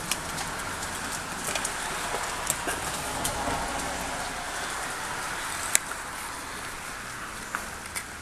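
A hard plastic 1985 Matchbox Robotech Tactical Battle Pod toy giving a few sharp clicks and knocks as it is handled and stood on wooden deck boards, over a steady background hiss.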